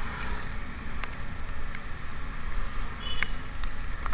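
Motorcycle riding noise: wind buffeting the microphone over a steady low rumble of engine and road. Scattered sharp ticks run through it.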